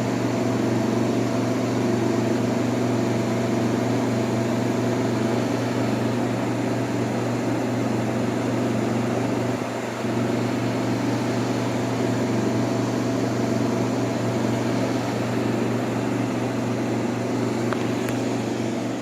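1958 Carrier 4,500 BTU window air conditioner running in cooling mode: a steady low hum from the compressor under the even rush of air from the blower, which is driven by a shaded-pole fan motor.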